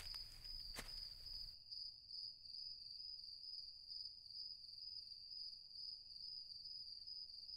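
Faint, steady chirring of crickets, one high even trill. A soft tap comes just under a second in, and at about a second and a half the low background rumble cuts out, leaving only the insects.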